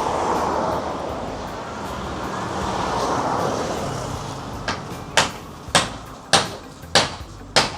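A rushing noise swells and fades twice, then a hammer starts striking timber about four and a half seconds in, with six evenly spaced blows about 0.6 s apart.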